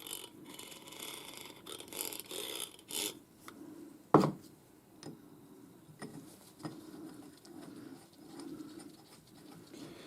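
Metal lathe tool-slide parts being handled and worked by hand: scraping, rubbing strokes, then a sharp knock about four seconds in and a few light clicks.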